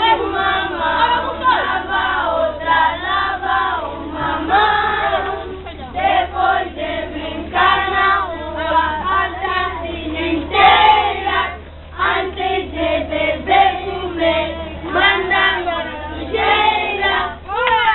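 A group of children singing together in chorus, with brief pauses between phrases, over a steady low hum.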